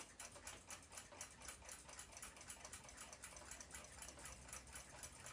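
A mechanical clock ticking faintly in a quick, even rhythm.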